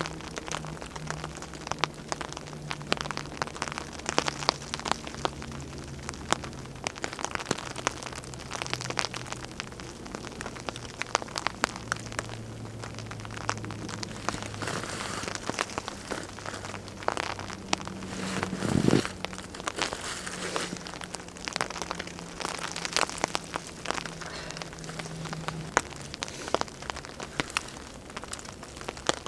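Steady rain pattering on a tarp, with many sharp ticks and snaps from a small, newly lit fire of wet wood crackling close by. About two-thirds of the way in there is one louder knock or rustle.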